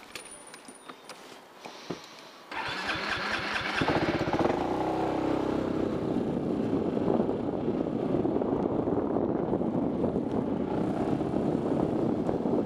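Motorcycle engine started on the electric starter about two and a half seconds in, catching about a second later, briefly revving, then running steadily as the bike rides off.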